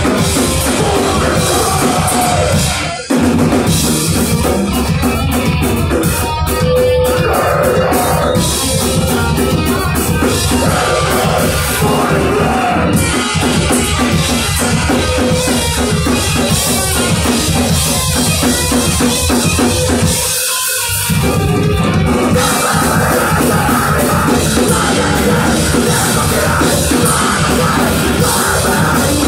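A punk band playing live and loud: pounding drum kit with distorted electric guitar and bass. The band breaks off briefly twice, about three seconds in and again about twenty seconds in, before crashing back in.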